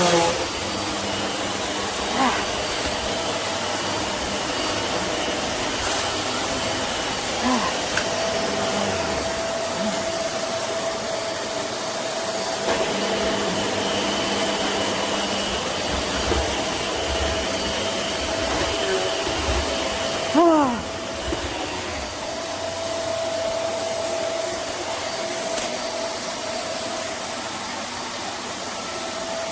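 Vacuum cleaner running steadily, its motor giving a constant whine over the rush of air, with a brief louder sound about twenty seconds in.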